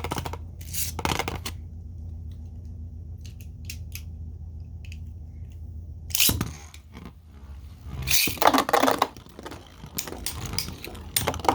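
Plastic clicks and scrapes of 3D-printed Beyblade tops and launchers, with loud rasping bursts about six and eight seconds in, then rapid clicking near the end as the tops are launched and clash.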